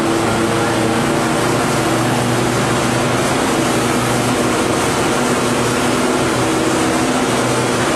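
Corrugated cardboard production line running: a steady machine hum of several tones over a constant hiss, from motors, drives and paper webs travelling over the rollers.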